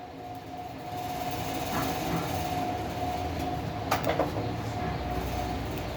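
Tower fan's blower turbine motor switched on and spinning up, then running steadily with a rush of air and a steady whine, on test after the motor's rewiring and fuse repair. A few short clicks, the loudest about four seconds in, as the speed buttons are pressed.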